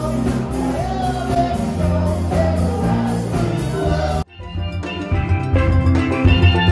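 Live rock band playing: electric guitars, drums and a singer, heard in a bar room. About four seconds in it cuts off abruptly and a different, cleaner recorded music track with a steady beat starts.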